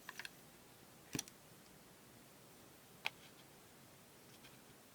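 A few short, sharp clicks and taps from the plastic parts of a disassembled earbud charging case being handled: two small clicks at the start, a louder one about a second in, and another about three seconds in, with faint room tone between them.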